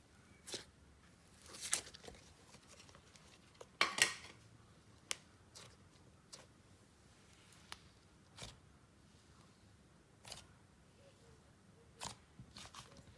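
Hands poking and stretching a layered clay slime topped with glitter and clay shavings: a dozen or so short, soft clicks and squishes scattered through, the loudest about four seconds in.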